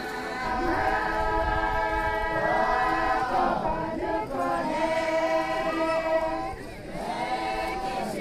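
A group of Naga women singing a traditional song together in long held notes, the phrases breaking off briefly about three and a half and seven seconds in.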